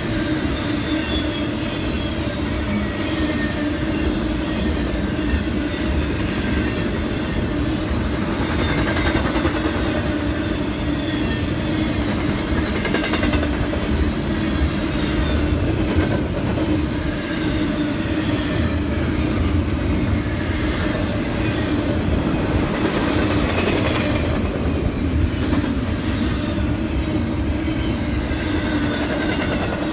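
Intermodal freight train of trailers and containers on flatcars rolling past at close range: a steady rumble and clatter of steel wheels on the rails.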